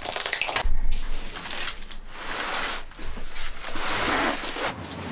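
A large flat cardboard box being handled on a rug: a thump about a second in, then cardboard scraping and rustling as the packed contents are slid out of the box.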